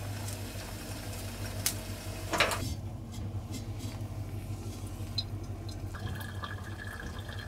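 Hot water poured in a thin stream from a gooseneck kettle into a paper coffee filter of grounds, over a low steady hum, with a couple of light knocks in the first half. A steady higher tone joins the pour near the end.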